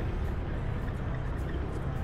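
Steady wind rush and low rumble on the microphone of a moving motor scooter, mixed with engine and road noise from riding.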